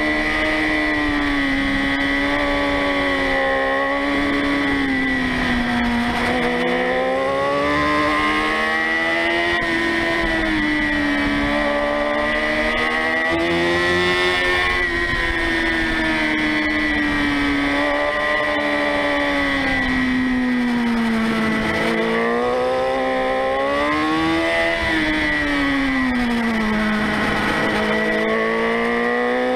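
Motorcycle engine heard from a camera mounted on the bike, its revs rising and falling smoothly as it is ridden through a string of curves. A steady high-pitched whine runs alongside, over a low rumble of wind.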